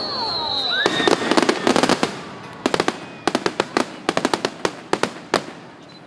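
Aerial fireworks bursting in a rapid, irregular crackle of many sharp pops and cracks, coming in quick volleys from about a second in and thinning out near the end.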